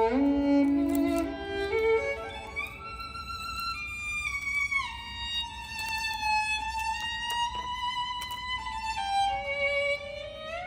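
Background music: a solo violin playing a slow melody that climbs over the first two seconds, with notes sliding into one another and held long.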